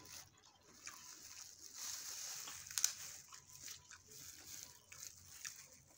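Close-up eating sounds: chewing and mouth noises over saucy snow crab, with small clicks and one sharp click about three seconds in.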